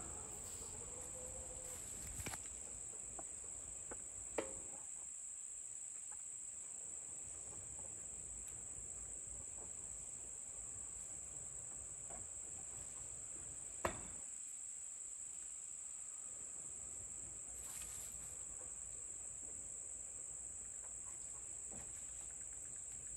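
Insects trilling steadily at a high pitch, with two faint sharp clicks, about four and fourteen seconds in.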